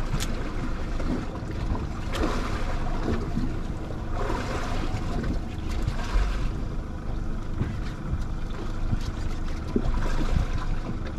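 Wind buffeting the microphone over the wash of sea water against a small boat's hull, a steady noisy rush with a few faint ticks.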